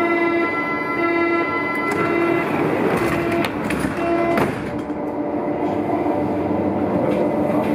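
Door-closing warning tone of a Berlin U-Bahn H-type train, beeping about once a second, five times. The doors then shut with a loud knock about four and a half seconds in, and a steady train hum follows as the train gets ready to pull out.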